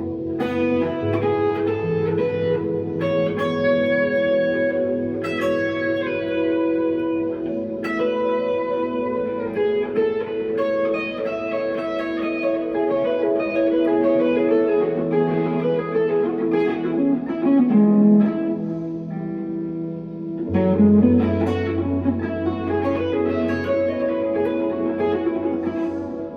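1963 Fender Telecaster electric guitar played through a Glaswerks Zingaro amp with delay and reverb: ringing single notes and chords that sustain and overlap, with string bends past the middle.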